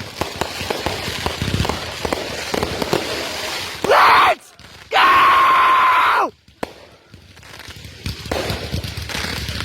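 Consumer fireworks crackling and popping in rapid succession, broken by a person's loud shouts about four seconds in: a short rising cry, then a long held one that drops in pitch at the end. The crackling picks up again near the end.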